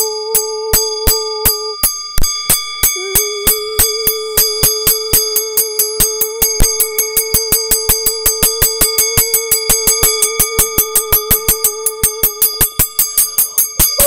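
Electronic sound: a steady held tone with high ringing bell-like overtones, over a train of sharp clicking pulses that speed up from about three a second to about six a second. Right at the end the held tone steps up in pitch.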